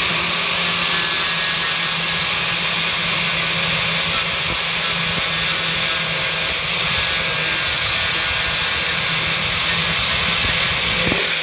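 Grinder running steadily with its disc pressed against the old weld on an aluminium aircraft fairing, grinding the weld down flat to prepare it for re-welding. At the very end the motor is released and starts to wind down.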